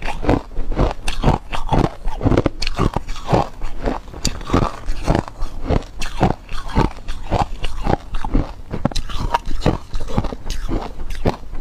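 Ice cubes being bitten and crunched between the teeth, a continuous run of sharp, uneven cracks, two or three a second, close to the microphone.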